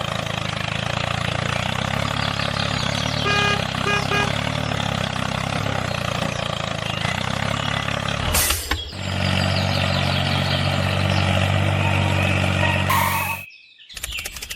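Engine-like running sound, steady with a low drone, from the mini tractor. It is broken briefly about eight and a half seconds in and cuts off near the end. Three short beeps come around three to four seconds in.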